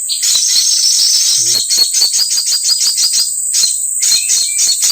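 A shrill, steady insect drone with rapid trains of sharp chirps, several a second, and a couple of short whistled bird notes near the end.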